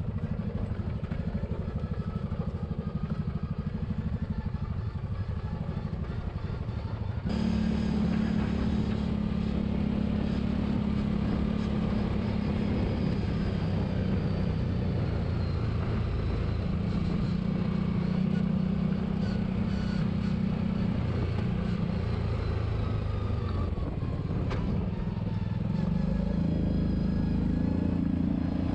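Side-by-side UTV engine running steadily while driving along a dirt trail, a continuous drone that rises and falls a little in pitch. The sound changes abruptly about seven seconds in.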